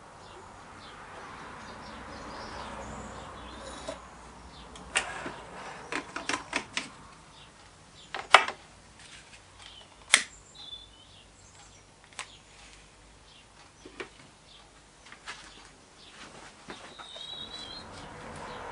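Scattered sharp clicks and taps from a syringe, a bottle and a long-reach utility lighter being handled to fill and light the methylated-spirit burner of a small model steam boiler, with several quick clicks together and a few single louder ones. A bird chirps briefly twice in the background.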